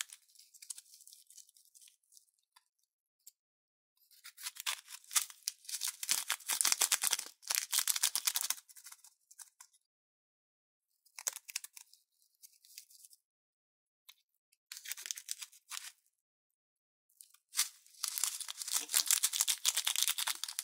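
Clear plastic piping bag crinkling in the hand as it is squeezed to push foam beads out through its tip, in several bursts of dense crackling separated by brief silences.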